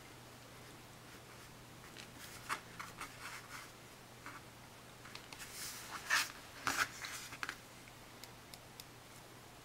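Handling noise from an iPhone in a rubbery silicone case as it is gripped and picked up off a table: scattered soft rubs, taps and clicks, with a louder cluster about six to seven seconds in.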